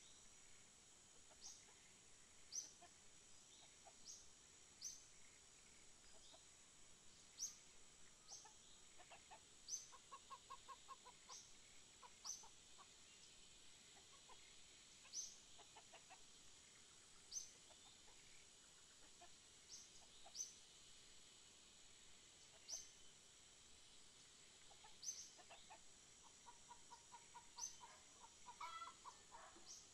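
Faint farmyard chickens clucking in short runs, about a third of the way in and again near the end, with a short high chirp repeating every second or two.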